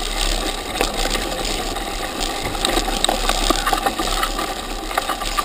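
Mountain bike rolling downhill over a muddy, rutted trail, heard from a camera mounted on the bike's front end: a steady rattle of the bike over the bumps with many scattered clicks and ticks, over the noise of the tyres on wet ground.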